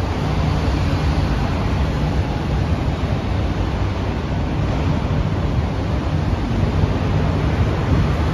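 SMRT C151B electric metro train pulling slowly away from an elevated station. A low hum from its traction equipment steps in pitch over a steady rushing noise.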